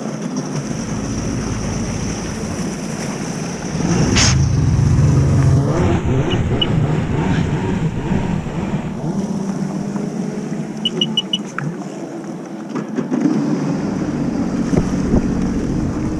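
Yamaha Wave Raider jet ski's 701 two-stroke engine running hard at speed on the water. The engine note gets louder about four seconds in, and again near the end.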